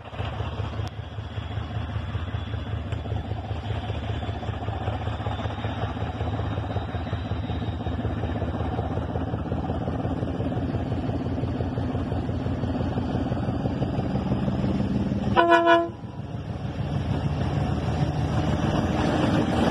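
DF7G-C diesel locomotive approaching with a steady low engine rumble that grows louder toward the end, and one short horn blast about fifteen seconds in.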